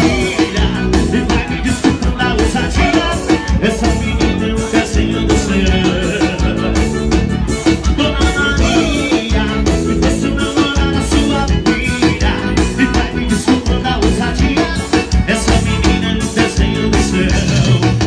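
Live band music played loud over a PA system, with a steady drum beat.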